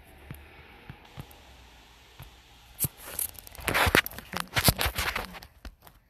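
Beading supplies being handled on a tabletop: a few light clicks, then from about halfway through a louder stretch of crinkly plastic rustling with sharp clicks of beads.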